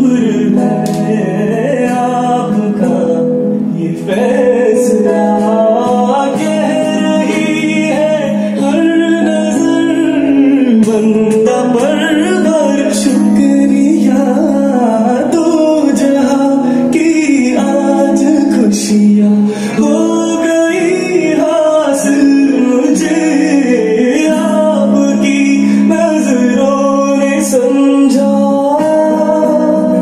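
A song with singing and instrumental backing, played from a phone over Bluetooth through the MX WLA-4500R lectern's built-in speakers; it plays loud and continuous, with little bass.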